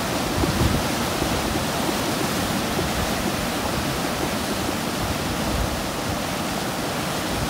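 Whitewater of a river rapid's standing wave rushing steadily.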